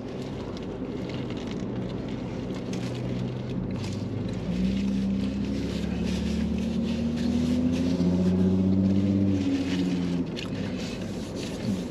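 A car engine running close by: a low hum that grows louder about four seconds in, drifts slightly in pitch, and eases off again near the end.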